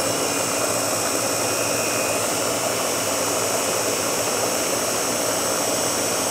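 Small food processor's motor running steadily at full speed, its blade blending a green smoothie in the clear bowl.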